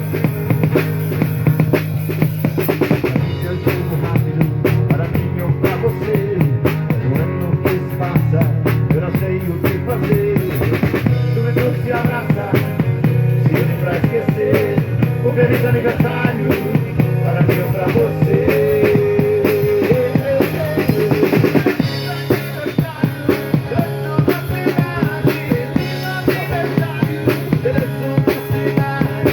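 Background music with a steady drum-kit beat and bass, rock-style.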